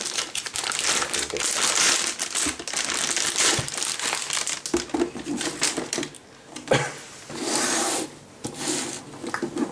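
Plastic anti-static bag crinkling as a motherboard is slid out of it and handled. The crackling is densest in the first half and thins out later, with a light knock about two-thirds through.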